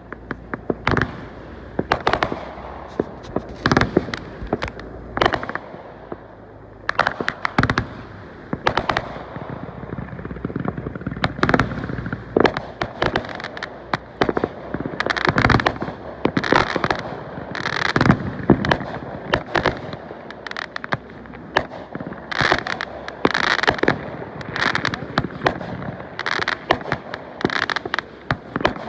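Fireworks going off in rapid succession: a steady run of sharp bangs, some overlapping in dense crackling clusters.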